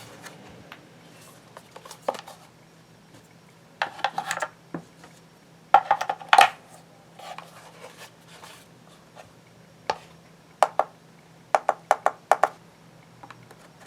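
Hard clicks, taps and short rattles of a digital scale and small tools being handled on a workbench during repair: a burst of clatter about four seconds in and another around six seconds, then a row of sharp single clicks later on, over a low steady hum.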